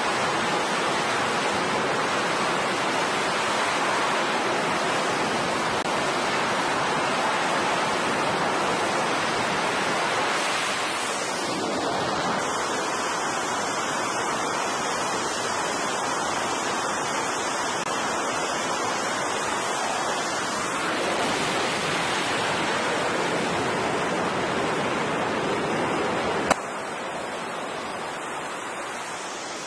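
Steady rushing noise of F/A-18 Super Hornet jet engines turning on an aircraft carrier's flight deck. The tone changes about a third of the way in and changes back later, and near the end a sharp click is followed by a somewhat quieter stretch of the same noise.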